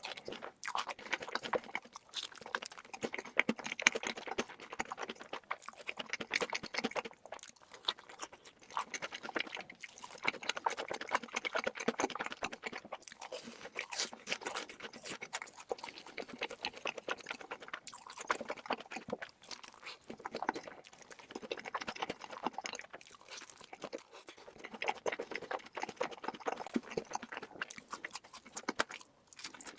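Close-miked mukbang eating: chewing and crunching of food in repeated bouts of dense clicks, with short pauses between them.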